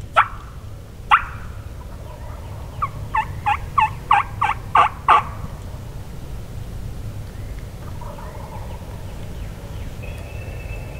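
Wild turkey calling: two sharp single notes about a second apart, then a rapid series of about eight notes that grows louder.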